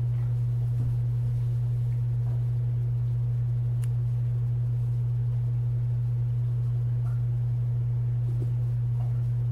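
A steady low hum at one unchanging pitch, with a faint click about four seconds in.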